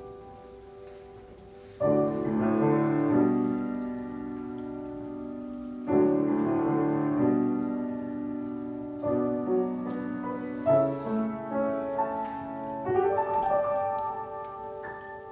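Slow solo piano music, chords struck about every three to four seconds and left to ring out.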